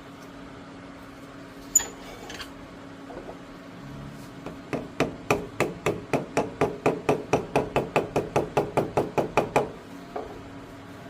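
A run of about twenty sharp, evenly spaced knocks, roughly four a second, growing louder before stopping abruptly; they sound like hammer or mallet blows in a workshop. A single sharp click comes a couple of seconds before the run.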